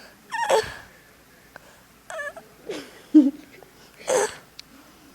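Very young puppy whimpering in short, squeaky cries, about five over a few seconds.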